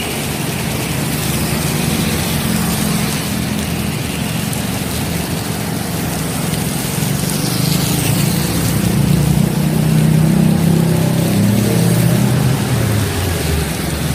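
Heavy rain hissing steadily, mixed with traffic on a wet road: a vehicle engine's low hum grows louder in the second half and fades near the end.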